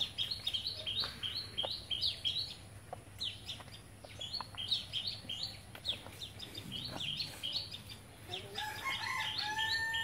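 Birds chirping constantly in quick, short, high notes, with a drawn-out chicken call near the end.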